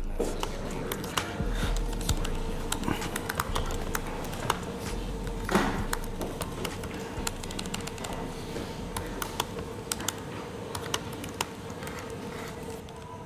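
Computer keyboard being typed on: irregular runs of key clicks, over a steady hum.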